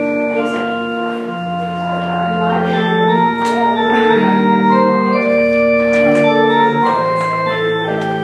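Church organ playing slow, held chords over sustained bass notes, the chords changing every second or two: the prelude before the service begins.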